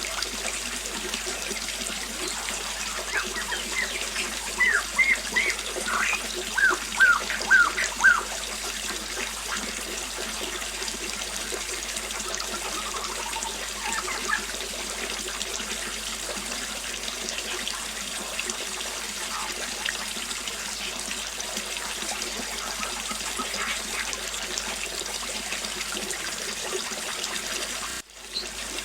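Small waterfall splashing steadily. A bird calls over it: a run of short, loud, falling whistled notes from about four to eight seconds in, and fainter calls a little later.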